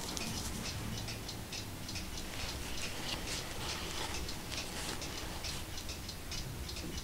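Cotton-gloved hands handling an old leather-bound book: a stream of small, irregular clicks and scratchy rustles as the gloves rub and grip the binding and page edges.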